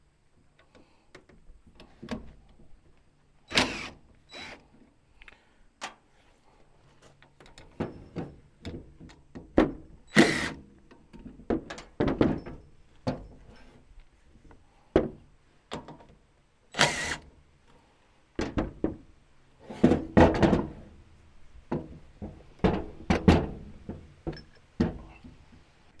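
Irregular clicks, knocks and clunks of hand tools and small metal parts as a wood chipper's electric starter motor is taken apart to get at its brushes. The loudest knocks come about ten seconds in, again at about seventeen seconds, and in a cluster a little after twenty seconds.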